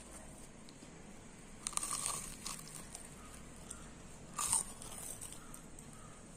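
Biting into and chewing a crisp fried urad dal vada (uzhunnu vada): a run of crunches about two seconds in and one sharper crunch about four and a half seconds in.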